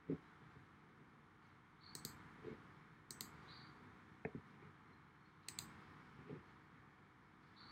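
Computer mouse clicking about half a dozen times, spaced roughly a second apart, over a faint steady hiss.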